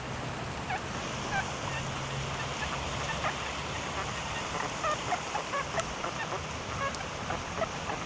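Metal detector's low, buzzy iron tone, the one that sounds like a fart, held for about three seconds and then dropping away. It signals an iron target under the coil. Rain hiss and small patters carry on underneath.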